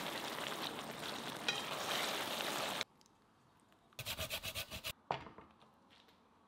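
Spaghetti being tossed into tomato sauce in a hot frying pan, sizzling and stirring, cutting off abruptly a little under three seconds in. About a second later comes a quick run of about eight short scraping strokes, then a single knock that fades away.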